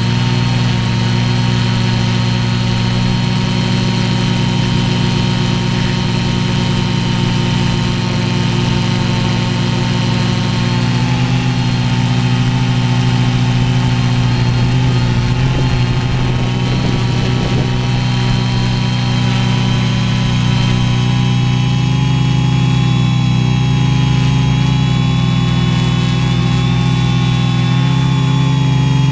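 Quadcopter's electric motors and propellers running steadily, heard close up from the camera on the frame: a buzz of several close tones that drift slightly in pitch as the motor speeds change, with a brief rush of noise about halfway.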